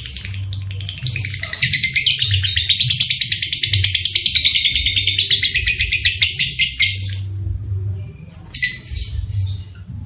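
Lovebird giving a long, very rapid chattering trill, the 'ngekek' call, from about one and a half seconds in until about seven seconds, then a few shorter chirps near the end. A low steady hum runs underneath.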